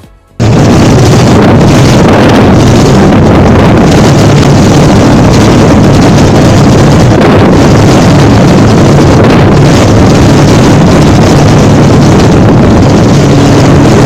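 A jet ski running at speed, its engine a steady drone under heavy wind buffeting on the microphone. It cuts in abruptly about half a second in and stays loud and even throughout.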